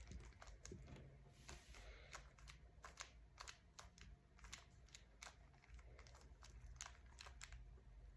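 Rubik's cube layers being turned by hand: faint, irregular plastic clicks, several a second.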